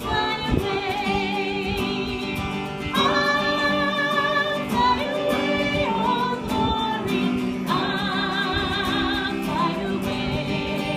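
Music: a singer holding long, wavering notes with vibrato over instrumental accompaniment.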